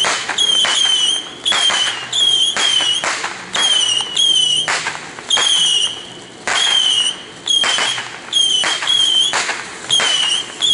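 Fireworks crackling with a fast run of short, high whistles, two or three a second, each wavering slightly downward in pitch.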